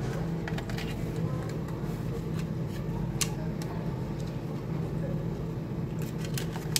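Hands handling the plastic housing, tubes and wires of an air-conditioner condensate pump during reassembly: scattered light plastic clicks and rattles, with a sharper click about three seconds in and a cluster of clicks near the end, over a steady low hum.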